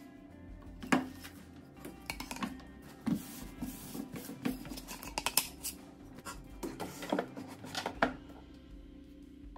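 Irregular knocks, clicks and rubbing from a wooden slatted board and clear plastic organizer bins being handled in a drawer. The sharpest knocks come about a second in and again near the end.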